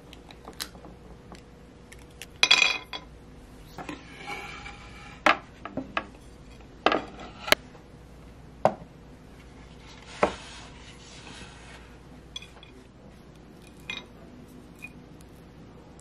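Scattered clinks and knocks of tableware: a stainless scoop, a glass and plates set against ceramic and a wooden tray, with a couple of short rustling scrapes. The loudest is a ringing clink about two and a half seconds in.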